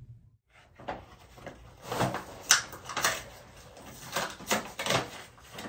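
Irregular clicks, taps and knocks of small objects being handled, about a dozen over a few seconds, the loudest ones in the middle.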